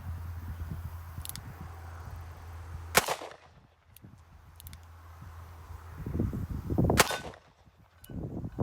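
Smith & Wesson 586 L-Comp .357 Magnum revolver firing two shots about four seconds apart, with wind buffeting the microphone.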